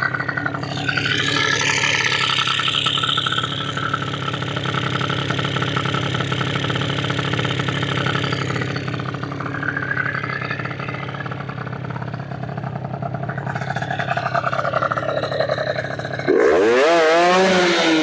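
Tuned MBK Booster scooter's 70cc Minarelli two-stroke engine running with the rear wheel spinning free on a paddock stand, at fairly steady revs. About sixteen seconds in it turns suddenly louder and is revved in blips, the pitch swinging up and down. The owner feels the engine could give more than its current ignition allows.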